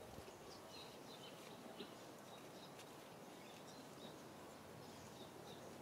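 Faint outdoor ambience with many short, high chirps scattered throughout, typical of small birds calling in the background.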